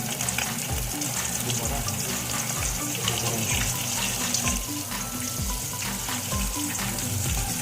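Marinated chicken wings frying in hot oil, a steady sizzle with fine crackles and spits throughout. Background music plays under it.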